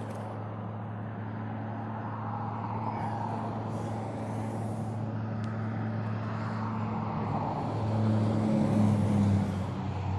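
Motor vehicle engine running with a steady low hum, growing louder and shifting in pitch about eight seconds in as it goes by.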